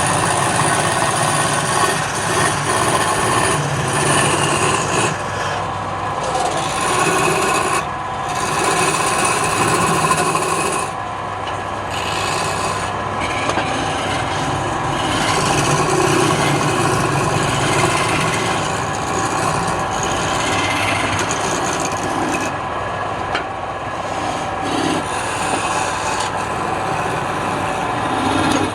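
Wood lathe running, with a tool scraping and rubbing steadily against the spinning wood over the motor's hum.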